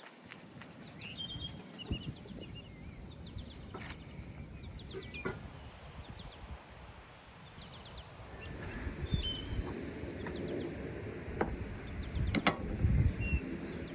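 Quiet outdoor ambience with birds chirping now and then, and a few light knocks and clicks from handling.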